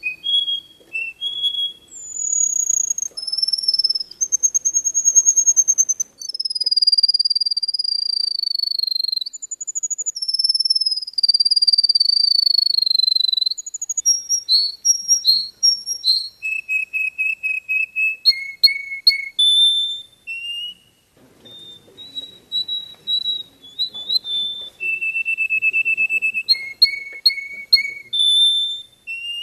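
A yellow canary-type finch singing a long, varied song: drawn-out high whistled notes that slide downward, fast trills, and runs of quick repeated notes.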